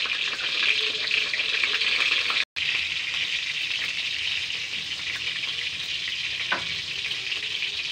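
Brinjal (eggplant) wedges frying in hot mustard oil, a steady crackling sizzle. The sound cuts out for an instant about two and a half seconds in, then carries on a little quieter, with one small click near the end.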